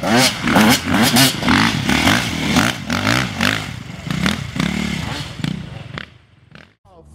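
Small dirt bike engine revving in repeated quick rises and falls in pitch as it is ridden along a dirt track, with some clattering; it fades away near the end as the bike moves off.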